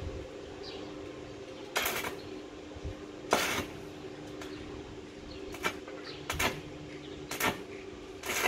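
Stick (arc) welding on a steel balustrade rail: short crackling bursts as the electrode strikes and holds an arc for brief tack welds, two longer bursts followed by several shorter ones, over a faint steady hum.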